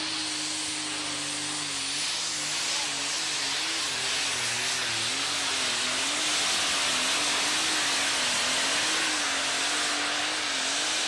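Super Stock pulling tractor's turbocharged diesel engine at full power, hauling the weight-transfer sled, with a high turbo whistle over the engine. From about two seconds in, the engine note wavers up and down.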